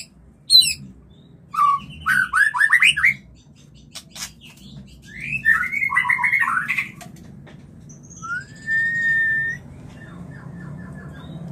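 White-rumped shama giving its mating calls: several short bursts of rapid, sweeping chattering notes, then one long whistle that rises and holds, followed by a quick run of ticking notes.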